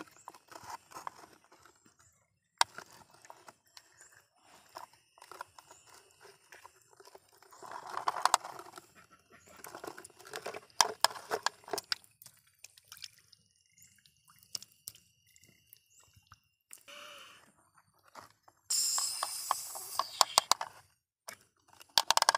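Plastic toy excavator and toy trucks handled in wet mud: scattered clicks and knocks of plastic, with a few longer bursts of scraping.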